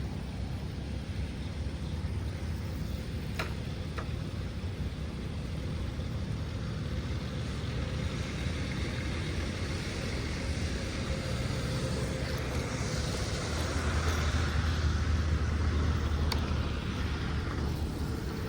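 Road vehicle passing: a steady low rumble and rush that swells to its loudest about 14 to 16 seconds in, then fades. Two sharp clicks come about three and a half and four seconds in.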